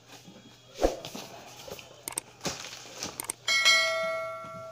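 A few knocks and clicks of a laptop being handled, the loudest just under a second in, then, about three and a half seconds in, a bell sound effect from a subscribe-button animation strikes once and rings on, slowly fading.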